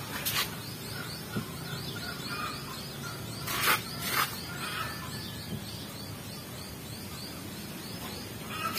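A hand wiping and smoothing over a fiberglass kayak hull, spreading styrofoam-based patching glue: a few short scuffing swishes, the loudest two about halfway through. Birds chirp in the background throughout.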